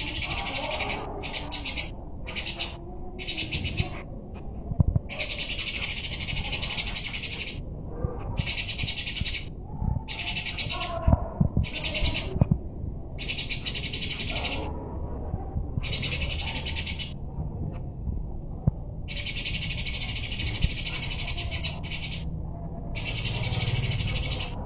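Eurasian tree sparrows chattering rapidly in a fight, in dense high-pitched bursts of one to three seconds broken by short pauses.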